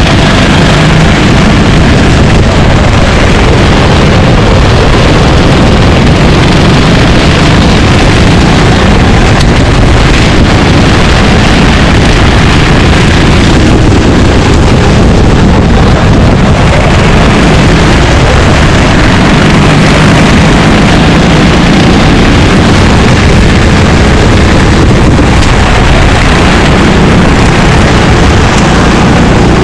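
Racing kart engine heard from an onboard camera, loud throughout, its pitch drifting up and down with the throttle, mixed with wind noise on the microphone.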